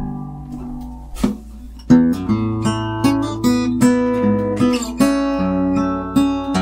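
Kay 000 acoustic guitar, X-braced, with a solid spruce top and laminated mahogany back and sides, being strummed. One soft strum comes about a second in, then a firm strum about two seconds in starts a steady run of ringing chords, which change chord about five seconds in.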